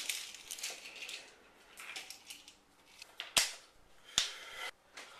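Rustling and clattering handling noise, then two sharp gunshots a little under a second apart.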